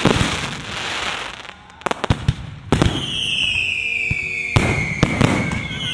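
Fireworks display: aerial shells bursting with sharp bangs, with a crackling hiss in the first seconds. From about three seconds in, a long whistle falls in pitch among further bangs, and another whistle starts at the very end.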